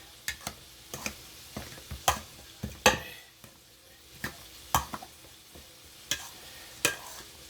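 Potato masher working boiled potatoes in a pot: irregular knocks and squishes, one or two a second, as the masher presses down and hits the pot, the loudest about three seconds in.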